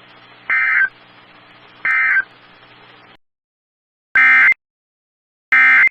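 Emergency Alert System end-of-message data bursts: short, shrill two-tone warbling bursts about a second and a half apart. The first two come through with receiver hiss behind them; the hiss then cuts off, and two more bursts follow, louder and cleaner, as the same end-of-message code is sent again.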